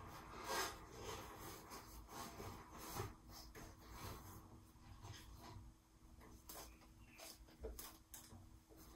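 Faint, irregular rubbing and rustling of a hand working inside a large stretched latex balloon, pushing small balloons and stuffing into place, with a few louder brushes near the start and about three seconds in.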